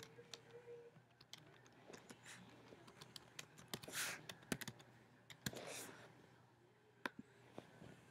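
Faint typing on a computer keyboard: irregular key clicks as an email address and password are typed in, ending in a click. Two short, soft rushes of noise come about four and six seconds in.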